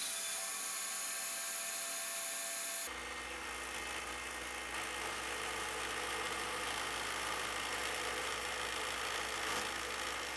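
Bandsaw running as a bar of resin-and-burl casting is fed through to cut a notch; about three seconds in, it gives way abruptly to a drill press running steadily, its bit boring into a clamped resin piece.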